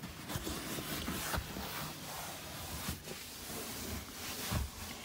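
A wipe rubbing over a leather car seat: a steady scrubbing hiss, with a few soft knocks.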